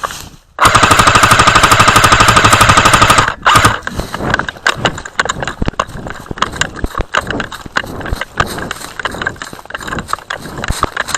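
Airsoft gun firing one long full-auto burst of about three seconds, very loud and with an even rapid rate, starting just after the start. It is followed by a stream of irregular footsteps and rustling.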